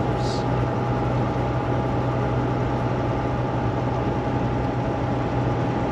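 Semi-truck engine and road noise heard from inside the cab while cruising on the highway: a steady low drone with a constant higher hum over it.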